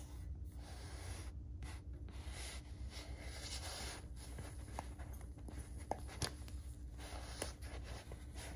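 Fingers rubbing and handling a soft nappa leather handbag: a faint scratchy rustle of skin on leather, with a few small sharp clicks in the middle stretch as the bag's flap and hardware are moved. A steady low hum runs underneath.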